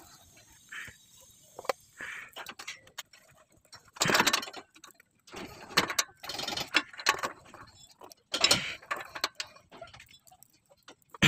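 Metal clicking and scraping of hand work on an engine as a new oxygen sensor is threaded into the exhaust manifold. The sound comes in several short, noisy bursts with scattered small clicks between them.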